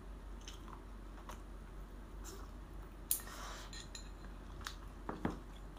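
Eating utensils clicking and scraping against bowls and plates during a meal: a few scattered clicks, the loudest about three seconds in and two more close together near the end.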